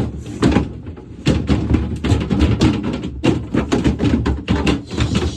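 Cleaning inside a refrigerator: a fast, uneven run of rubbing strokes and knocks against its plastic walls and fittings.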